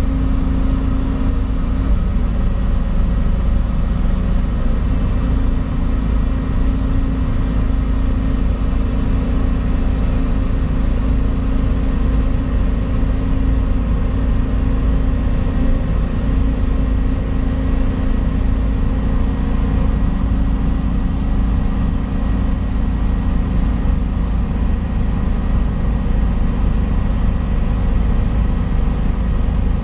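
Volvo EC220 excavator's diesel engine running at a steady speed, heard from inside the cab.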